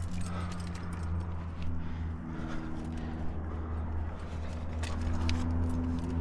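Scattered clicks and scuffs of a climber moving in a granite crack: gear clinking on the harness and hands and rock shoes scraping the rock, a few sharp clicks at a time, over a steady low hum.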